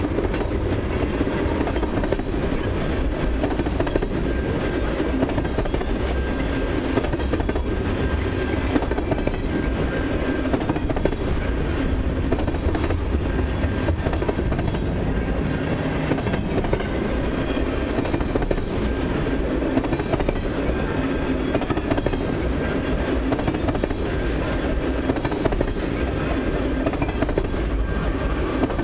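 Freight train of tank cars rolling past close by: a steady rumble of steel wheels on the rails with a running clickety-clack.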